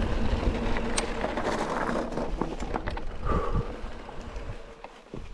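Wind buffeting the microphone over the rattle and ticking of an electric mountain bike rolling along a rough track, the rumble dying down in the second half as the bike slows. A short squeal a little over three seconds in.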